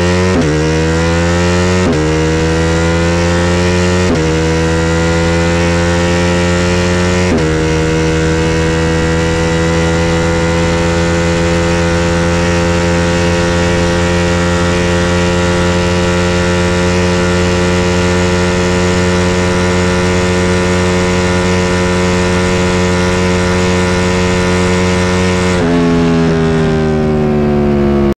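Sport motorcycle engine at full throttle, rising in pitch and dropping sharply at upshifts about 2, 4 and 7 seconds in. It then holds a steady high-revving drone at speed and winds down as the throttle is rolled off near the end.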